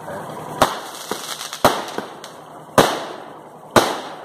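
Fireworks going off: four loud bangs about a second apart, each trailing off, with two smaller cracks in between.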